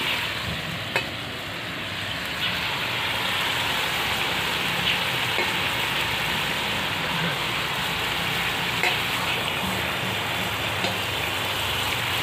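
Potatoes with moringa (drumstick) stalks and flowers cooking in a kadai: a steady sizzle, with a few faint light clicks.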